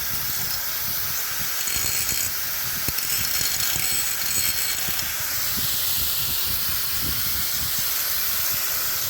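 Angle grinder with a thick blade cutting through a metal pipe: a steady, loud hissing grind with a faint high whine.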